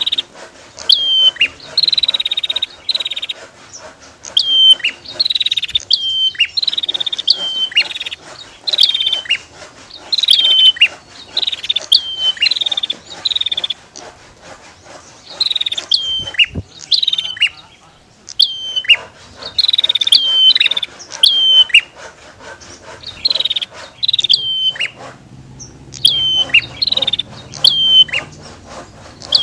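Prinias (prenjak), male and female, calling back and forth: loud, sharp whistled notes that each drop steeply in pitch, given in quick runs of two to four with short pauses between, over a fine rapid ticking.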